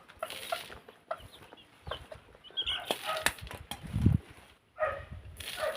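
Chickens clucking in short irregular calls, with scuffling and a loud low thump about four seconds in.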